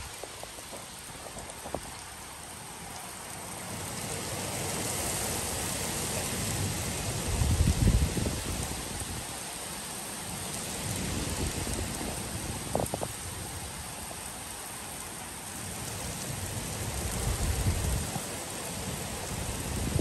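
Heavy summer rain falling steadily on wet asphalt pavement and a parked car, a continuous hiss that swells about four seconds in. Low rumbles come in about eight seconds in and again near the end, the loudest moments.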